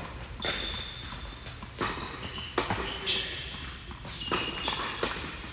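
Tennis ball struck back and forth by rackets in a doubles rally, several sharp hits with the players' footsteps and shuffling on the hard court between them.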